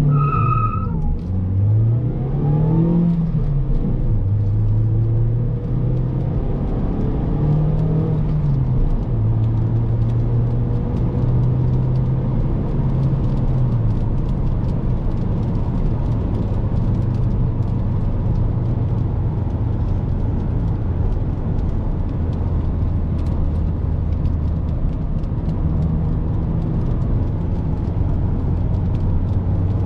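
Mazda 5's 2.0-litre petrol four-cylinder under hard acceleration from inside the cabin: the revs climb and drop back at each upshift of the manual gearbox several times, then settle to a steady cruising drone. A brief high beep sounds right at the start.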